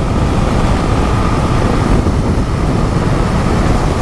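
Steady wind rush on the microphone, with the road and running noise of a Honda XRE 300 motorcycle cruising at highway speed, about 100 km/h. The rush holds even, with no change in speed.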